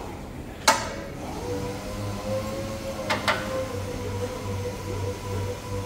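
A single sharp knock under a second in, then a steady hum sets in and holds, with two quick clicks about three seconds in.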